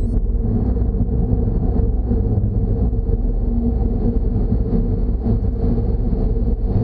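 Steady low rumble of car traffic echoing inside a stone-walled road tunnel, with no breaks or distinct events.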